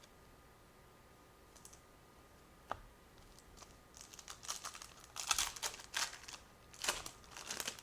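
Trading cards and a foil card-pack wrapper being handled: one sharp click about two seconds in, then a stretch of crisp crinkling and rustling as the pack is opened and the cards are sorted.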